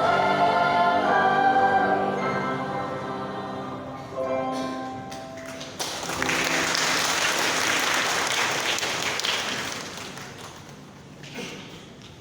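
Children's choir singing the last phrase of a song and holding the final chord, which ends about halfway through. Audience applause follows and fades out near the end.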